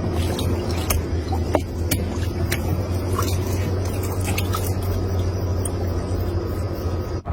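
A motor running steadily with a low hum, with scattered clicks and light scrapes over it.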